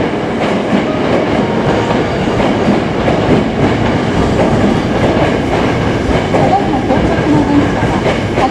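Hankyu Railway electric train moving on the rails: a loud, steady rumble of wheels and running gear.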